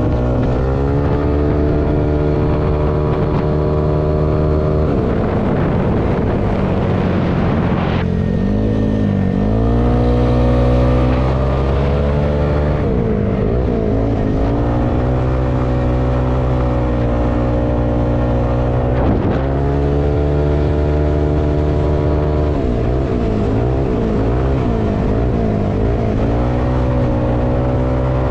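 Yamaha Aerox 195 cc scooter's single-cylinder engine running on the road at a steady pitch, heard from the rider's seat. Several times the pitch drops and then climbs back up.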